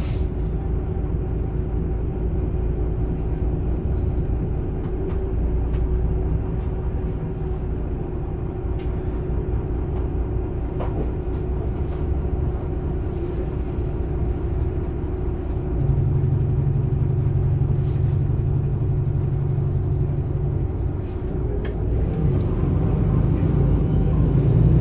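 MAN Lion's City A21 city bus's 360 hp diesel engine, with its ZF EcoLife six-speed automatic, running under way, heard from inside the bus with steady engine and road noise. The engine note gets louder about 16 seconds in, eases back a few seconds later, and builds again near the end.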